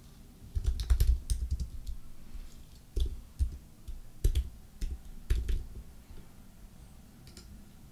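Typing on a computer keyboard: keystrokes clicking in short, uneven clusters, stopping about six seconds in.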